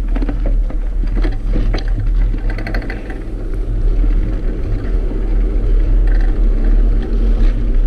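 Wind buffeting the microphone and tyre rumble as a bicycle rides along a paved trail, a steady low rumble that grows heavier as it picks up speed. A run of sharp clicks and knocks falls in the first two seconds.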